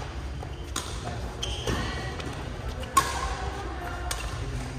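Indistinct voices over a low steady hum, with a few sharp knocks, the loudest about three seconds in.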